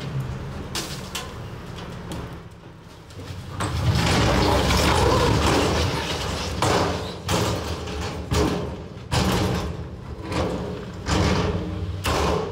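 Dump truck tipping a load of granite boulders: the truck's engine runs under a loud rumbling crash as the boulders slide out of the raised bed onto the ground about four seconds in, followed by a series of sharp bangs roughly once a second.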